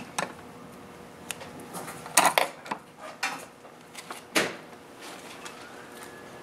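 Scattered light clicks and knocks as hands work at the needle and presser foot of an idle industrial sewing machine, threading it. Near the end a faint siren rises.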